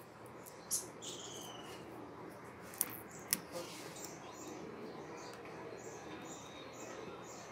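Faint handling sounds of plastic protective film being peeled and picked off a cast-resin hammer head with steel tweezers: light crinkling and three sharp clicks in the first half. High chirping repeats in the background from about the middle on.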